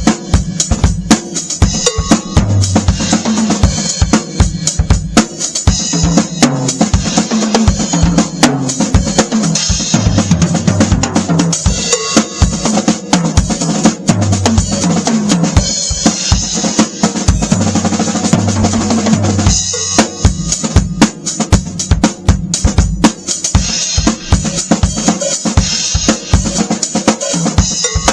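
Drum kit played continuously in a groove, featuring a Beatello Ace of Spades 14x8 basswood snare drum with a Power Stroke 2 head, freshly tuned, being sound-checked. Dense, steady stream of hits throughout.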